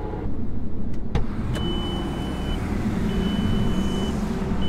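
Turbocharged VW Golf 4 R32 engine idling steadily, heard from inside the cabin. A sharp click comes about a second in, as the driver's door is opened. Then a high warning beep sounds three times, each beep about a second long, the last starting near the end.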